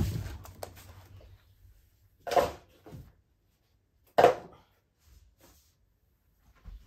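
Two short handling noises about two seconds apart, each a brief scuff with a fainter one between them.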